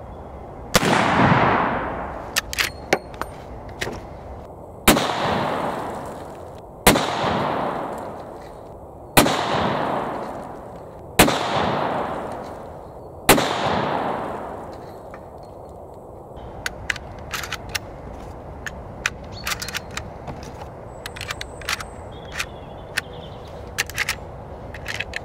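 Six shots from a Marlin 1895 SBL lever-action rifle in .45-70 Government, each followed by a second or two of echo rolling away. The first is followed by a few sharp metallic clicks, and the others come about two seconds apart. In the last third come scattered small metallic clicks and clacks as the rifle is handled and loaded.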